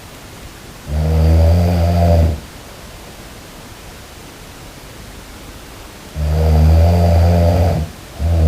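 A person snoring: two low, even-pitched snores of about a second and a half each, some five seconds apart, with a third starting near the end, over a steady hiss.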